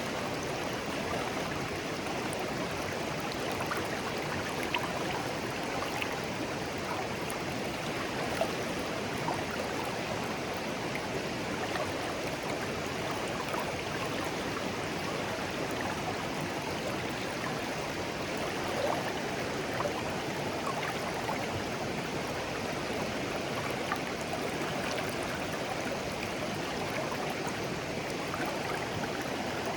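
Shallow clear stream flowing steadily over stones: a constant babbling rush with small gurgles and splashes scattered through.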